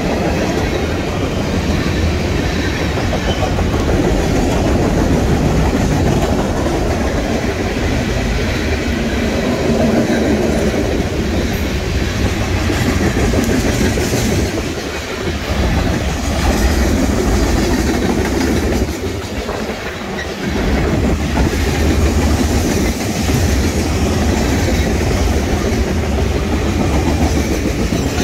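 Freight train passing close by: a loud, continuous rumble with the clickety-clack of the cars' wheels over the rail joints, dipping briefly twice in the second half.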